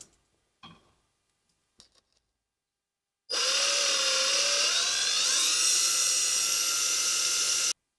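A small power tool's motor runs for about four seconds, starting and stopping abruptly, its pitch rising partway through and then holding steady.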